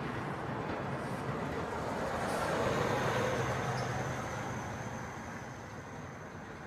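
A road vehicle passing on the bridge, its rumble and low engine hum swelling about three seconds in and then fading away.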